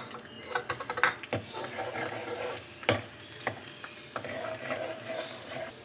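Chopped garlic sizzling in hot oil in a metal kadhai, being fried to light brown, while a steel ladle stirs it, clinking and scraping against the pan several times.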